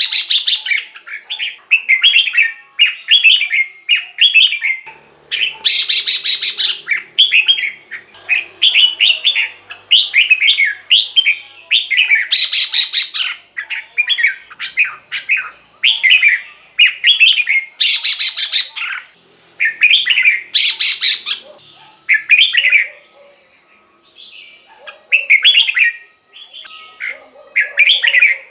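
Red-whiskered bulbul singing: short repeated phrases of quick, bubbly whistled notes, broken every few seconds by a louder, buzzier burst.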